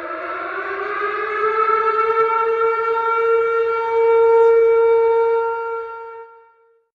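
Siren sound effect: one long tone that slides up in pitch over the first couple of seconds, holds steady, then fades out near the end.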